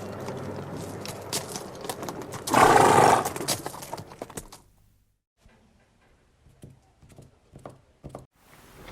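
A horse whinnying once, loudly, about two and a half seconds in, amid scattered clicking hoofbeats. The sound then fades to near silence for a few seconds.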